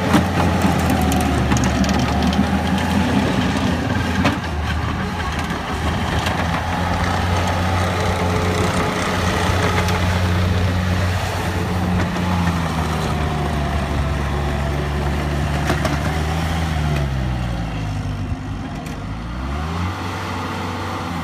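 Bobcat T190 compact track loader's diesel engine running as the machine is worked. The engine note holds steady, then sinks gradually over several seconds and climbs back up near the end, with a few brief knocks.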